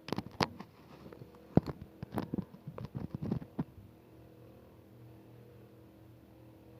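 A quick run of sharp metallic knocks and clinks from tools working on the top cover of a swimming pool sand filter, stopping a little before halfway, over a steady low hum.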